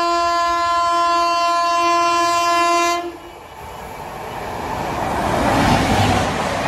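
WAP-7 electric locomotive's horn sounding one long steady blast that cuts off about three seconds in. Then the rushing noise of the express passenger train passing at speed builds, loudest as the locomotive goes by near the end.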